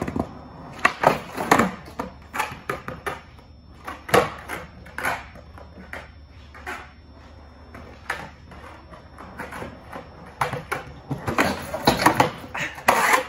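Skateboard on a concrete floor: wheels rolling, with repeated sharp clacks and knocks of the tail popping and the board landing as flat-ground tricks are tried, coming thicker near the end.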